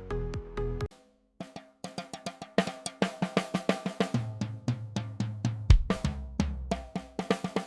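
Background music with a rhythmic drum beat and pitched notes. It drops out briefly about a second in, and a bass line comes in partway through.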